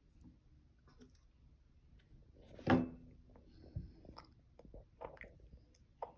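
Toddler chewing food, with small mouth clicks and lip smacks. A short, louder sound comes nearly halfway through.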